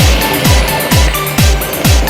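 Electronic dance music with a steady kick drum, a little over two beats a second, over ticking hi-hats and short held synth notes.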